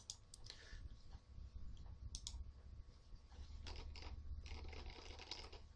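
Faint, irregular clicking of a computer keyboard and mouse as a web search is typed and the browser is worked, over a low steady hum.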